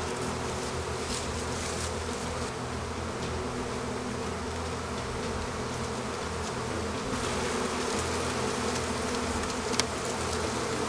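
Honeybees buzzing in a dense, steady hum as the colony boils out of the open hive. There is one sharp click near the end.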